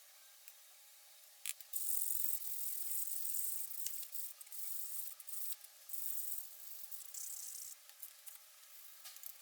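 Hand abrasive scrubbing on the drill stand's metal, a scratchy hiss in several uneven strokes of up to about a second and a half, starting after a click about a second and a half in.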